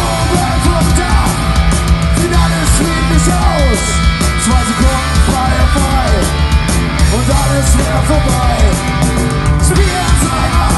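Live rock band playing loud: electric guitars and drums, with a singer's voice over them.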